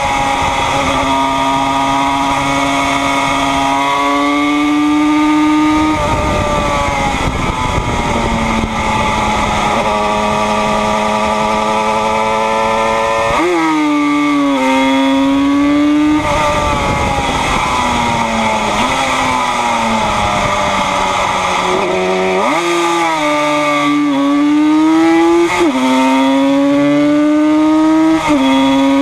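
A 1976 Yamaha RD 250's air-cooled two-stroke twin, racing at high revs near 10,000 rpm. Its pitch sags and climbs through the lap, with quick jumps about halfway and again about three quarters of the way through.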